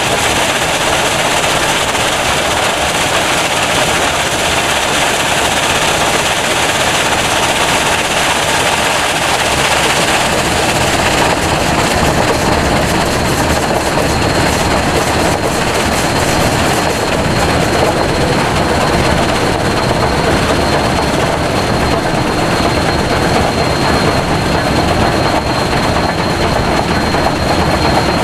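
Steady rushing wind and road noise on the built-in microphone of a car pacing Union Pacific 844, a 4-8-4 Northern-type steam locomotive running at speed alongside, its running blended into the rush. A thin high whine joins about ten seconds in.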